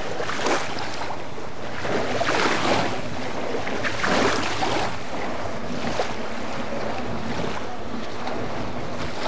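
Wind buffeting the microphone in gusts, swelling about half a second in, again around two to three seconds and again around four seconds, over a steady hiss of wind and lake water.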